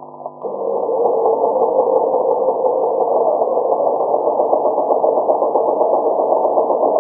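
Domestic sewing machine running steadily at speed, stitching a row of shirring with elastic on the bobbin. It starts about half a second in.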